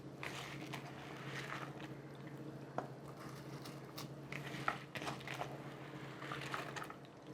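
Soaked rice being tipped into boiling water in a pressure cooker: wet slopping and splashing with a few sharp clicks, over a steady low hum.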